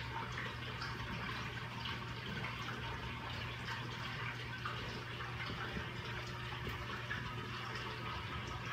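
Running water of a reef aquarium's circulation: a steady trickling, bubbling wash of water with a low, constant pump hum beneath it.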